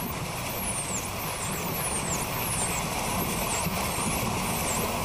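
Small boat motor running steadily, with faint high whistles over it that sweep down and back up, repeating every half second or so.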